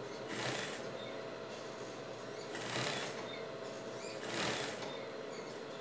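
Industrial straight-stitch sewing machine stitching fabric in three short bursts, each about half a second, with pauses between while the fabric is guided, over a faint steady hum.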